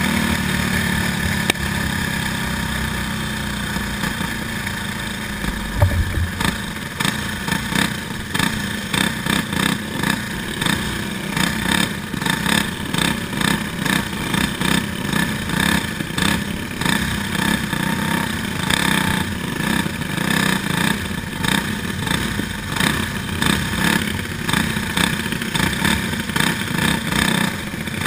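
Racing go-kart engine running at speed, heard from the kart itself, its loudness rising and falling in quick pulses through the second half.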